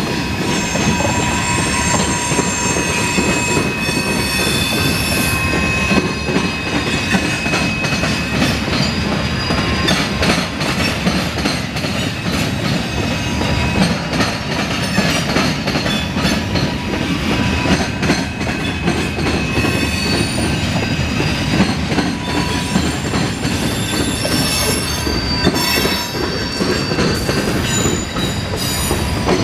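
CSX mixed freight train's cars rolling steadily past, wheels rumbling and clicking over the rails, with high-pitched wheel squeal coming and going as the train takes a curve.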